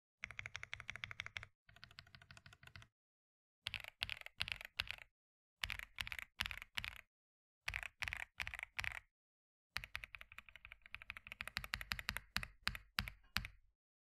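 Typing on a stock Royal Kludge RK M65 mechanical keyboard. A quick run of keystrokes comes first, then three short groups of a few keystrokes with pauses between them, then another fast run that stops just before the end.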